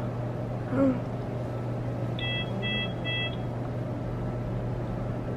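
Bedside medical equipment beeping three times in quick succession, over a steady low hum in a hospital room. About a second in there is a brief voice sound.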